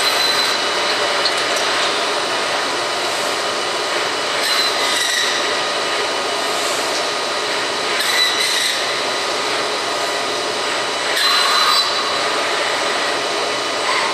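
CNC bandsawing centre running while making wooden spoon blanks: a steady mechanical noise, with a higher whine that swells briefly every three to four seconds.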